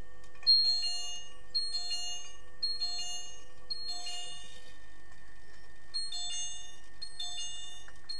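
Short metallic ringing strikes heard through the water, repeating about once a second, with a steady faint hum under them.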